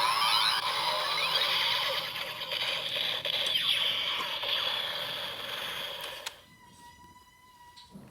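Kamen Rider Zero-One transformation belt toy playing electronic sound effects: rising sweeps repeating quickly over a dense synthetic tone. About six seconds in it dies down to a faint, steady electronic tone.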